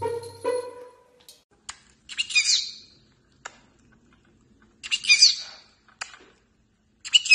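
Small green parrot squawking: three short, harsh, high-pitched calls about two and a half seconds apart, with a few sharp clicks in between.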